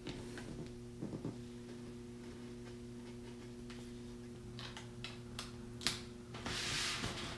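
Light clicks and taps, then a brief scraping rub about a second long near the end, from work on adhesive screen tone film at a drawing table, over a steady electrical hum.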